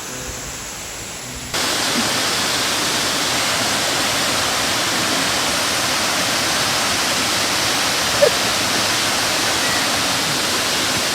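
Waterfall rushing, a steady, loud roar of falling water that jumps abruptly louder about one and a half seconds in and then holds level.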